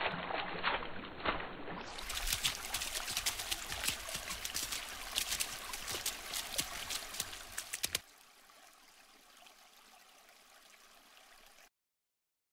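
Water splashing and gurgling, full of small crackling drips and splashes; about two seconds in it switches to a brighter recording of the same kind. The water stops abruptly about eight seconds in, leaving a faint hiss that cuts to silence near the end.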